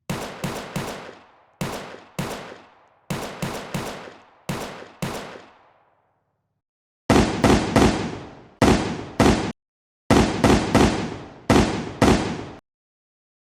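Gunshot sound effects fired in quick groups of two to four shots, each shot ringing out with a decaying echo. From about seven seconds in comes a louder set whose tails are cut off abruptly between groups.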